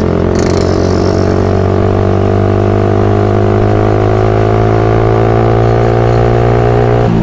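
Suzuki Satria FU's single-cylinder four-stroke engine running steadily under way, its pitch creeping slowly upward, then dropping sharply near the end.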